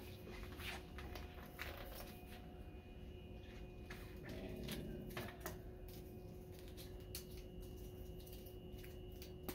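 Faint handling sounds: a plastic IV bag of sterile water and its tubing rustling, with scattered light clicks, as the bag is hung on a pole and its tubing is taken in hand. A steady faint hum runs underneath.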